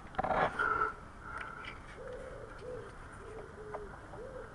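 A brief clatter near the start, then a pigeon cooing over and over in the background, a run of short, low, rounded notes.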